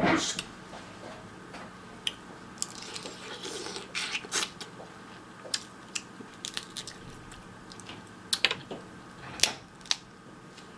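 Close-miked eating of sauce-covered Dungeness crab: sharp cracks and snaps of crab shell being broken open, with wet squishing and chewing in between. The loudest cracks come right at the start and again twice near the end.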